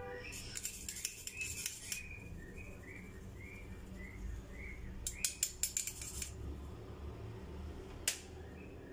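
Metal spoon scraping and tapping inside a small wire-mesh strainer to sift baking soda into a glass bowl: two bursts of rapid clicking and scraping, then one sharp click near the end.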